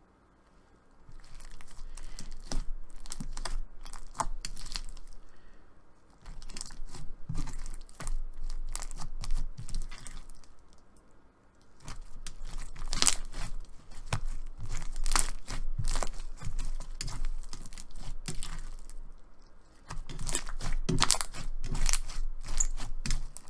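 Clear slime loaded with fishbowl beads being squeezed and stretched by hand, giving dense crunching and crackling clicks. The crackling comes in four long spells with short pauses between them.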